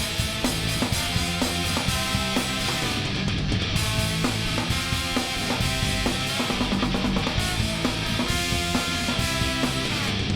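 Live punk rock band playing an instrumental passage: loud, steady guitars over a driving drum beat, with no singing.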